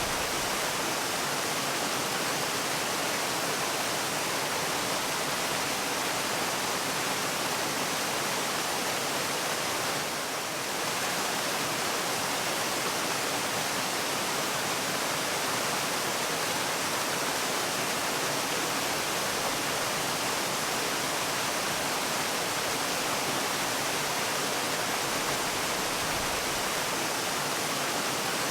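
Waterfall: a steady, even rush of falling water, dipping slightly in level for a moment about ten seconds in.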